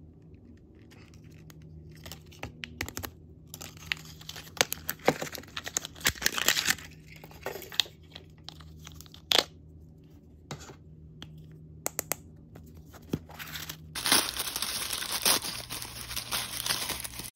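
Plastic and foil toy packaging being torn open and handled: scattered crackles and tearing sounds, turning into dense, continuous crinkling of foil wrappers for the last few seconds.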